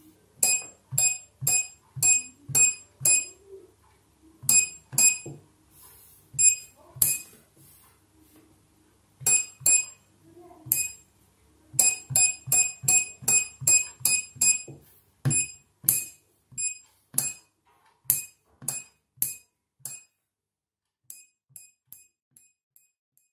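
Electromechanical relays on an eight-channel relay module clicking as they are switched on and off from the touchscreen, each click with a short high beep. The clicks come in quick runs of about two a second with short pauses and grow faint near the end.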